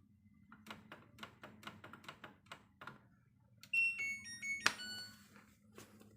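Buttons on a front-loading washing machine's control panel being pressed over and over, a dozen or so clicks, with the start button not responding. About four seconds in the machine's electronics play a short beep tune, followed by a sharp click and a single beep.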